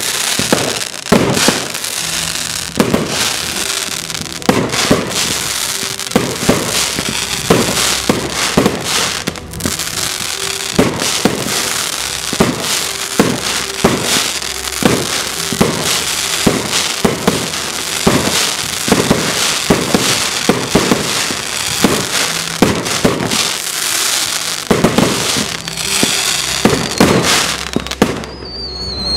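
Aerial fireworks going off in quick succession: many sharp bangs one after another over a dense crackling, thinning out briefly near the end.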